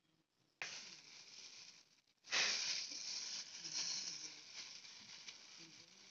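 Thin clear plastic bag crinkling and rustling as it is pulled down over a potted seedling by hand. It starts suddenly under a second in and gets louder about two seconds in, then eases off.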